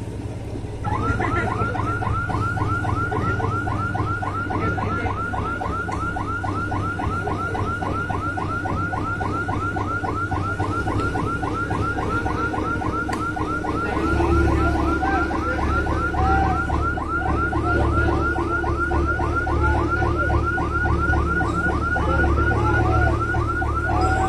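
An electronic warning alarm sounding a fast, even run of chirps, about five a second, starting about a second in, over the low running of heavy lifting machinery whose engine grows louder about halfway through with a steady hum.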